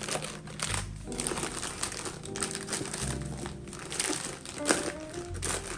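Plastic seasoning sachets crinkling and rustling as handfuls are grabbed and dropped into a plastic container, over background music.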